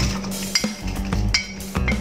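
A metal fork clinking and scraping against a ceramic plate as spices and leaves are pushed off it into a frying pan, a few sharp clinks over background music with a steady beat.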